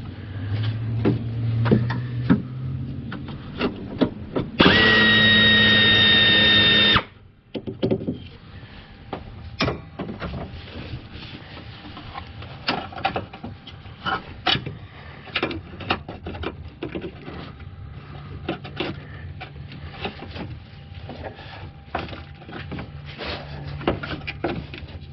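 Pneumatic air ratchet running in one steady burst of about two seconds, a hiss with a high whine, about five seconds in. Around it, scattered clicks and knocks of hand and tool handling.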